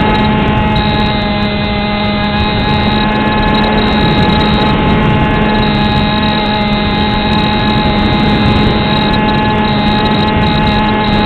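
Beta 1400 RC model plane's motor and propeller heard from the plane's own onboard camera in flight: a steady hum at constant throttle over rushing air noise. Right at the end the pitch starts to drop as the motor is throttled back.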